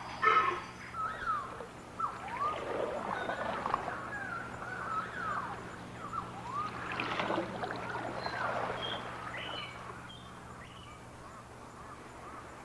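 A chorus of wild animal calls: many short overlapping squawks and whistles, most sliding down in pitch, with a few higher chirps. They start about a second in and die away after about ten seconds, over a faint steady low hum.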